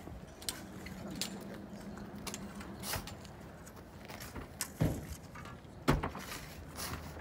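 Shovels scraping and digging into loose soil, with scattered clicks and scrapes and two louder knocks about five and six seconds in.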